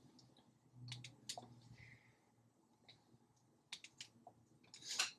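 A few faint, scattered clicks and taps, about a second in and again near four seconds, with a short, louder hiss or rustle just before the end: hands working the light panels' power and setup.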